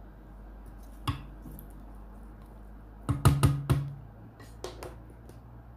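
Cookware knocks on a pot of raw vegetables: a single knock about a second in, then a quick run of several loud clattering knocks about three seconds in, and a few lighter ones after.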